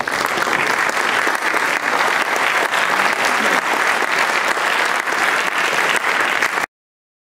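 Audience applauding, a dense, steady patter of many hands clapping that cuts off suddenly near the end.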